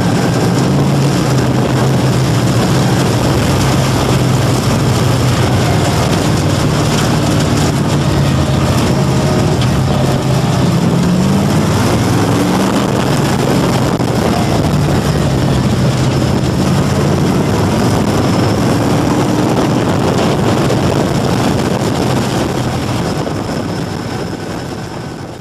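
Crate Sportsman dirt-track car's V8 engine heard from inside the cockpit, running steadily with a few brief rises in pitch, then fading out near the end.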